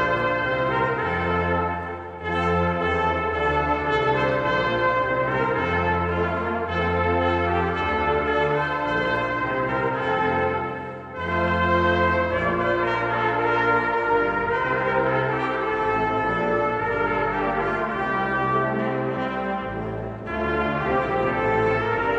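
Brass choir of trumpets, trombones and tuba playing a piece in several parts over a held bass line, with short breaks between phrases about two, eleven and twenty seconds in.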